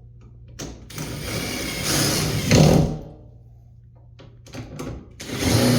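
Power drill driving doorknob mounting screws in two runs. The first starts about a second in and lasts about two seconds, and the second starts near the end.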